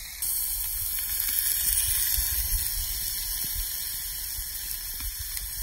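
Meat sizzling on a hot flat rock heated by a wood fire underneath: a steady hiss that starts suddenly about a quarter second in.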